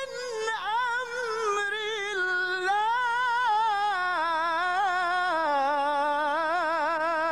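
A man reciting the Quran in the drawn-out melodic tajweed style, holding one long ornamented vowel that wavers rapidly in pitch, rises a little and then drifts lower toward the end.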